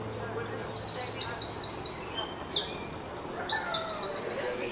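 Songbirds singing in the trees: a run of rapid, high trilled phrases and sharp chirps, one after another.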